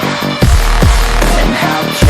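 Electronic dance music with heavy bass drops, about two a second, under held synth chords; no singing.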